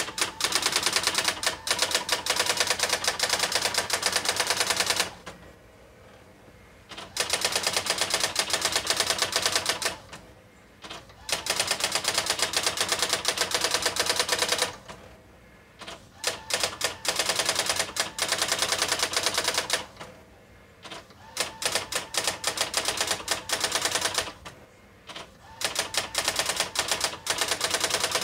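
Brother GX-6750 electronic daisy-wheel typewriter printing its built-in self-demo text: fast, even strikes of the print wheel in runs of several seconds, broken five times by short quieter pauses.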